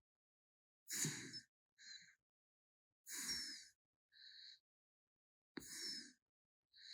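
A sleeping pet raccoon snoring softly in a steady rhythm: a fuller breath with a low snore about every two and a half seconds, each followed about a second later by a shorter, fainter breath.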